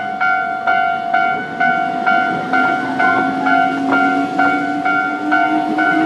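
Japanese railway level-crossing warning bell ringing a steady repeated ding, about two strikes a second, the signal that the crossing is closed for an oncoming train. A low hum joins about halfway through, rising slowly in pitch.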